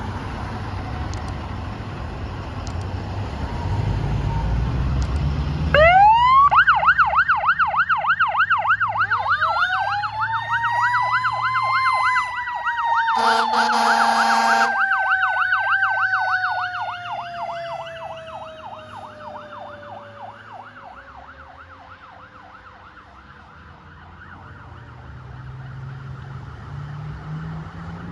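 Fire tower truck sirens: a fast yelping siren starts about six seconds in, then a Federal Q mechanical siren winds up, peaks and slowly winds down. A horn blasts once for about a second and a half in the middle, and everything fades as the truck pulls away. Traffic rumbles at the start.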